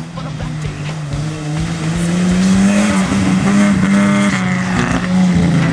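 Off-road rally 4x4 truck's engine running under power, its note rising and growing louder about two seconds in, then held.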